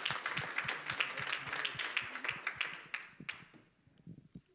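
Audience applauding, the clapping dying away about three seconds in, followed by a couple of faint knocks.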